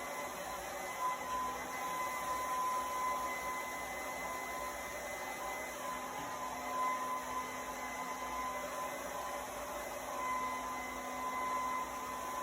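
Hair dryer running steadily: a constant rush of air with a thin, steady motor whine.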